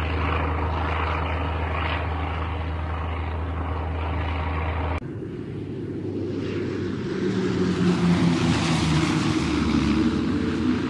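Single-engine propeller plane's piston engine running steadily. About five seconds in it cuts abruptly to a plane flying past, its engine and rushing air growing louder and brighter, loudest near the end.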